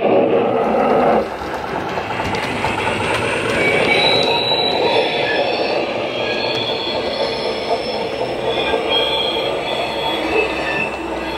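Flange squeal effect from an ESU LokSound 5 sound decoder in a Rivarossi Union Pacific Big Boy model, played through its tender EM2 speaker and sugarcube speaker. Short high-pitched wheel squeals come and go over a steady running sound, which gets quieter about a second in.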